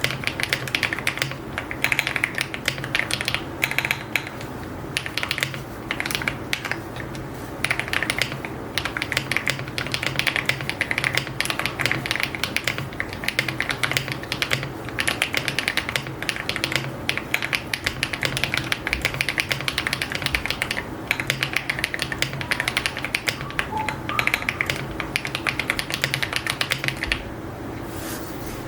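Typing on a custom AULA F75 75% mechanical keyboard with copper metal keycaps and pre-lubed HMX Latte linear switches: a fast, steady run of keystrokes that stops near the end.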